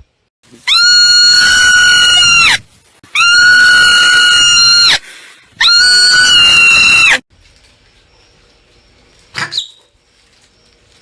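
Marmot giving three long, loud screaming calls, each steady in pitch for about two seconds with a short pause between, then a brief short call near the end.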